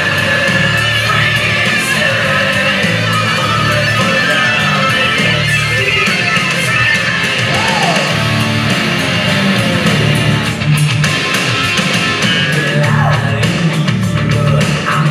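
Loud rock music with electric guitar, played continuously.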